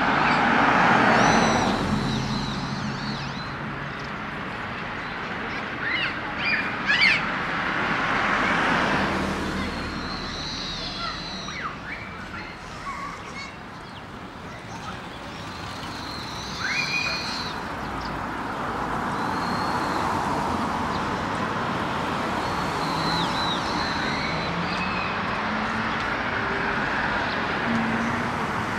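Street ambience of cars passing on the road beside the pavement, with small birds chirping and calling in short rising and falling notes several times over it.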